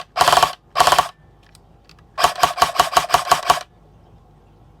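King Arms M4 airsoft electric gun's gearbox dry-cycling on an 11 volt lithium-ion battery: three short bursts in the first second, then, about two seconds in, a full-auto burst of about a dozen shots at roughly eight a second. It cycles cleanly without double feeding or stalling.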